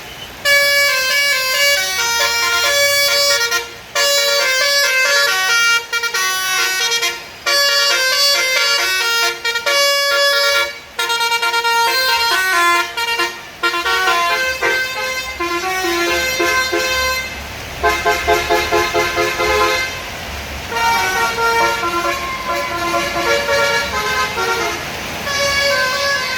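Multi-tone telolet horn on a tour bus playing a loud, quick melody of stepped notes. About two-thirds of the way through it breaks into a rapid stutter of short repeated notes.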